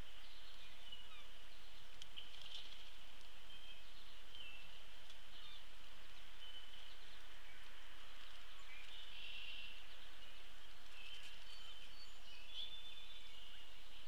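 Birds chirping and whistling, with many short high notes scattered throughout, over a steady background hiss and a faint low hum.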